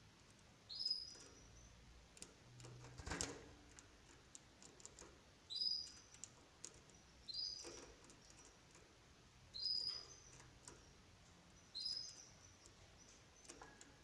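Canary giving short call chirps, five single notes about two seconds apart. A sharp click about three seconds in.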